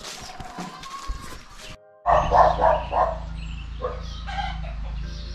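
Dogs barking: a quick run of about four barks, then a couple more, over a steady low hum. Before them, a few quiet steps.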